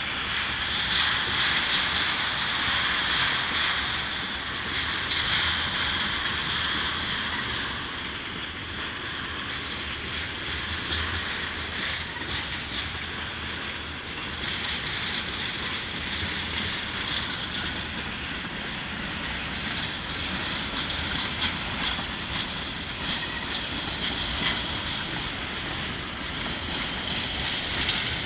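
Freight cars rolling past on steel wheels: a steady rushing rumble with a steady high-pitched whine over it and many small clicks and clacks from the wheels on the rails.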